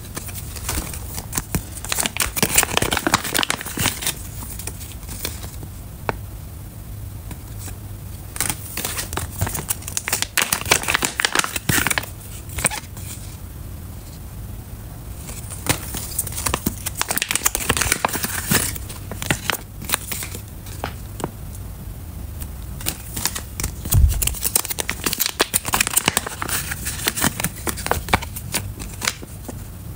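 Metallised foil zip-lock pouches crinkling as hands handle and flex them, in several bursts of crisp crackling with short pauses between. One low thump comes about three-quarters of the way through.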